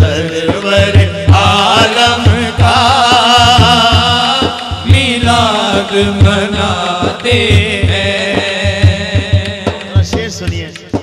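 Men singing a naat in long, wavering melismatic lines, over a steady beat on a daf frame drum. Near the end the singing thins out and the drum strokes carry on.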